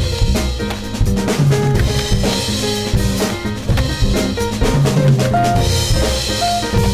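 Jazz session music led by a drum kit, busy snare and bass-drum strokes over a moving bass line, with short pitched notes from other instruments above.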